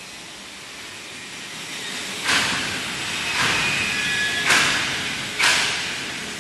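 Workshop noise: a hiss that builds up, broken by four sudden loud hissing bursts about a second apart, each fading quickly.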